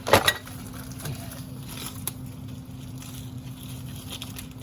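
New brake pads being handled and taken out of their cardboard box: a sharp clatter and rustle at the start, then a few light clicks, over a steady low hum.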